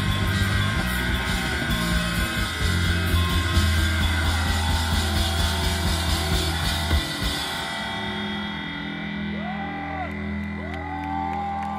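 Live rock band playing loudly, with bass, guitar and drums. About seven to eight seconds in, the drums and cymbals drop out, leaving sustained low notes and gliding, wavering higher notes.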